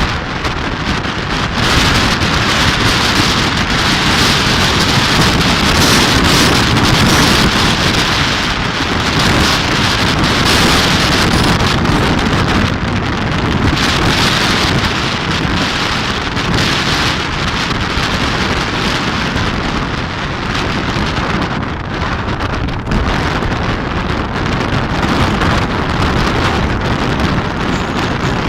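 Strong wind blowing hard across the microphone: a loud, dense rushing noise that swells and eases in gusts.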